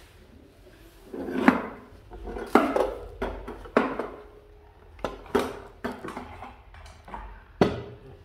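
A series of irregular knocks and clatters, some with a short metallic ring, as a wooden-cased pendulum wall clock is handled and set down on a metal stand.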